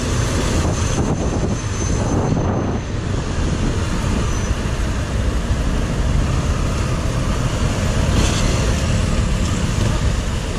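Steady noise of a motorcycle riding at speed in highway traffic: engine, tyres and wind on the bike-mounted camera, with the traffic around it.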